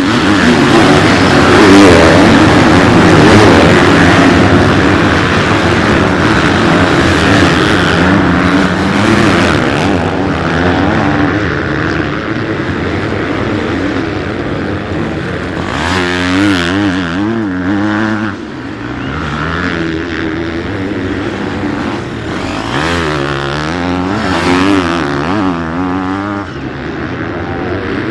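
Many motocross bikes running hard at high revs as the pack races away, the sound fading over the first ten seconds or so. After that, a single nearby bike revs up and down, around the middle and again near the end.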